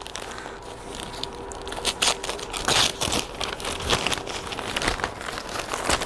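Crumpled newspaper packing wrap rustling and crinkling as it is handled and pulled off a plant pot. The crackles are irregular and get busier from about two seconds in.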